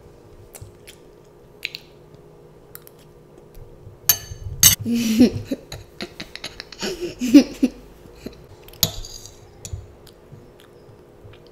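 A metal spoon clicking and scraping against a ceramic bowl of rice, with a child chewing. A louder stretch in the middle brings short bursts of the child's voice, giggly sounds, twice.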